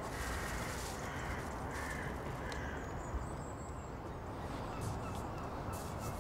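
A crow cawing a few short times in the first half, over steady outdoor background noise.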